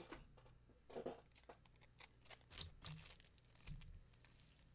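Faint handling noise: a scatter of small clicks and rustles with a few soft low thumps, as a packing tape dispenser and a small plastic parts bag are handled and set aside.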